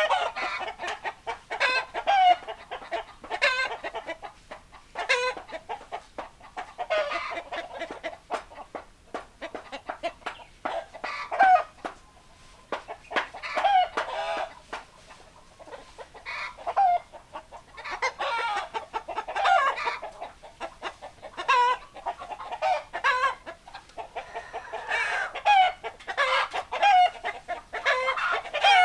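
A flock of chickens clucking, with many short pitched calls overlapping one another and a brief lull about twelve seconds in.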